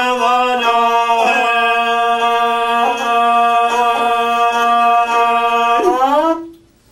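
A man singing long, held notes in Albanian folk style, sliding between pitches, with the song ending about six seconds in.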